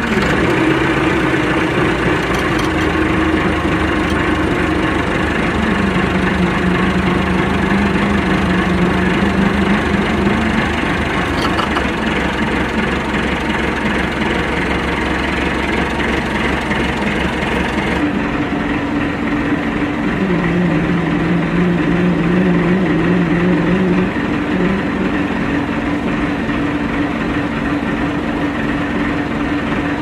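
Massey Ferguson 390T tractor engine idling, heard from inside the cab, with a rumbling noise. A droning tone in it drops in pitch and comes back every few seconds.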